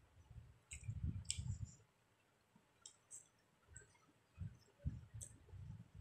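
Eating by hand: fingers mixing and squeezing rice against a ceramic plate, giving scattered sharp little clicks and a few soft low thumps.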